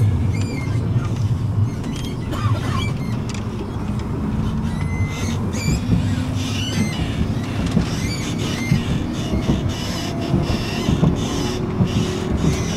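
Tram running on its rails, heard from inside the car: a steady low rumble with short clicks over the track and a few brief high wheel squeals.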